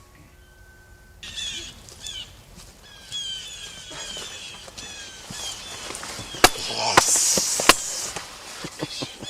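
Birds calling: many short, high, falling notes repeated over and over. About six and a half seconds in, a sharp crack, then a loud rushing, rustling burst and a second sharp crack a little over a second later.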